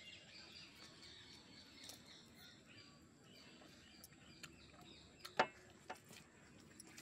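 Faint birds chirping in the background, with a few short clicks in the second half, one sharp click about five and a half seconds in the loudest.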